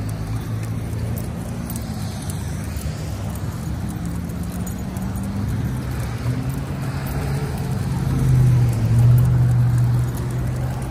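Road traffic on the adjacent street: a steady low engine hum with tyre noise, growing louder as a vehicle passes close about eight seconds in.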